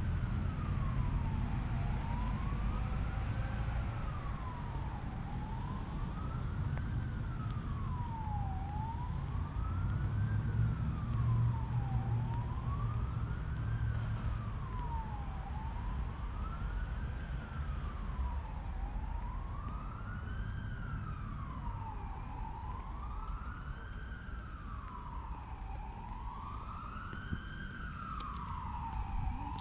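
An emergency-vehicle siren in a slow wail, rising and falling about every three and a half seconds. It grows louder in the last third. A steady low rumble runs under it.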